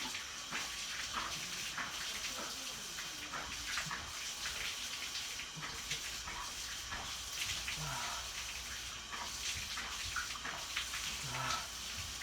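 Aerosol can of carburetor cleaner hissing as it is sprayed into the ports of a chainsaw carburetor.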